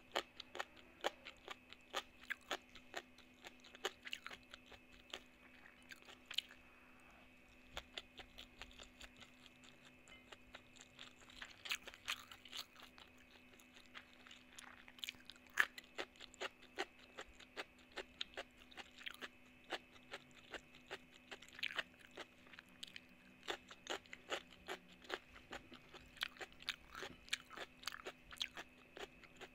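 Close-miked mouth sounds of eating by hand: wet chewing with frequent sharp crunches and clicks from cucumber and rice, thinning out for a few seconds after the first third, with the loudest crunch about halfway through. A faint steady hum runs underneath.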